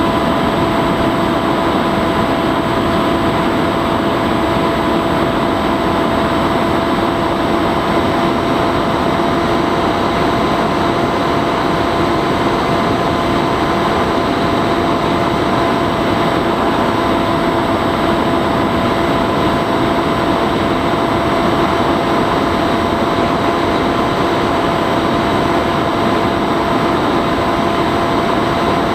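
Bixler 3 RC plane's electric pusher motor and propeller running at steady cruise throttle, with rushing air noise. It is a constant whine of several steady tones over the wind hiss, with no change in pitch or level.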